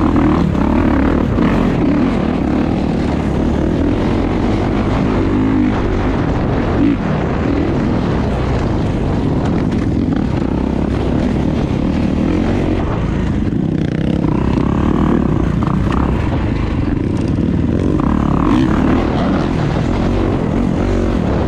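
Kawasaki dirt bike engine running steadily under throttle while riding a dirt trail, heard from a camera mounted on the rider.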